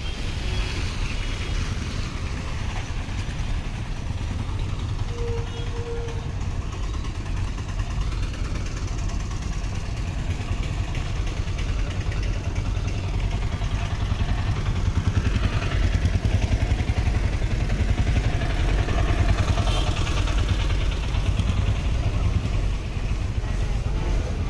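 Vehicle traffic around a bus station: engines running and passing, over a steady low rumble, with a short beep-like tone about five seconds in.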